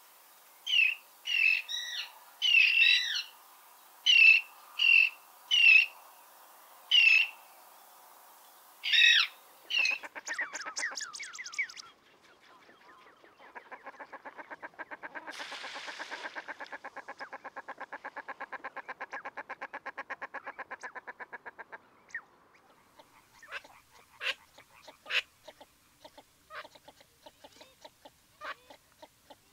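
Common tern calling: a series of about ten loud, short calls, roughly one a second, over the first nine seconds. After that comes a fast pulsing rattle lasting about ten seconds, then scattered short ticks near the end.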